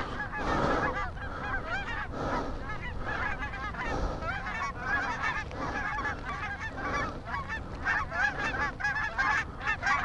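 A large flock of wild geese calling as it comes in over the decoys: many overlapping honks that grow thicker near the end. Wind buffets the microphone underneath.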